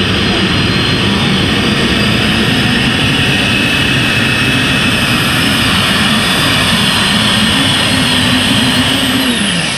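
Multi-engine modified pulling tractor running under full load, a loud steady roar with a high whine over it. Near the end the pitch falls as the engines wind down.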